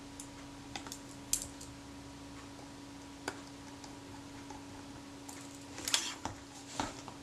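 Small metal clicks and taps from a Kodak Retina IIC folding camera being handled: a few scattered light clicks, then a louder little clatter about six seconds in as the camera is picked up and turned over. A faint steady hum sits underneath.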